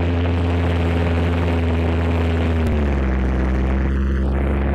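Gipsy Major engine sound of a model de Havilland Tiger Moth biplane in flight, running steadily, its pitch dropping a little about two and a half seconds in.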